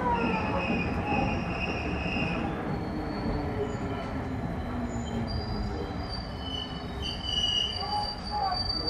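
Running sound inside a JR West 221 series electric train's motor car as it slows for its terminal stop, with a falling whine near the start and the wheels squealing in high, steady tones over the rumble of the rails.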